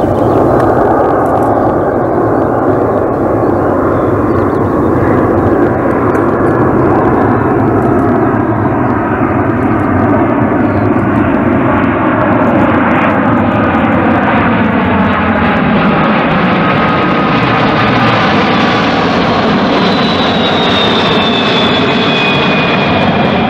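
Boeing 767-300ER airliner on final approach with gear down, its Rolls-Royce RB211 turbofans running loud and steady as it passes low overhead. Several whining engine tones slide down in pitch as it goes by, and a high fan whine comes in near the end and falls slowly as it moves away.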